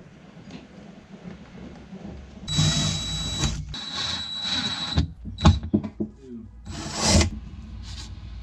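A small power tool runs in two short bursts of about a second each with a steady high whine, while a fitting is mounted inside a fibreglass boat console. Several sharp knocks and a brief scrape of handling follow.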